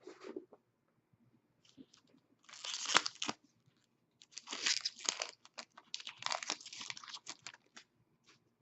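Foil trading-card pack being torn open and its wrapper crinkled, in three main bursts of crackle with lighter rustles between.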